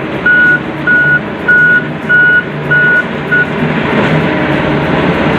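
Construction-vehicle reversing alarm beeping evenly, one high beep about every 0.6 s, six beeps that stop about three and a half seconds in, over the steady rumble of a truck engine that keeps going.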